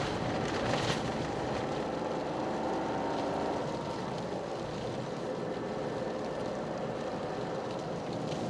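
Toyota GR Yaris driving, its turbocharged 1.6-litre three-cylinder engine running under steady road and tyre noise from studless winter tyres. The engine note drops about three and a half seconds in as the revs fall, with a short click about a second in.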